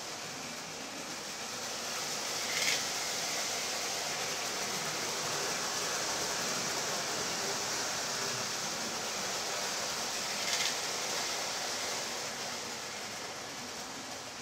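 Lionel toy steam freight train running on three-rail track: the locomotive's electric motor whirs and the wheels rumble, growing louder as the train swings close, with two brief clicks about eight seconds apart.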